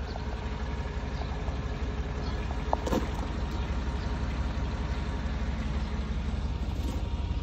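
Chevrolet Tahoe's V8 engine idling steadily, with a short click about three seconds in.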